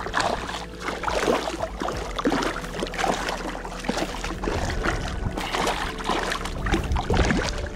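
A hooked trout thrashing in shallow water, a run of irregular splashes.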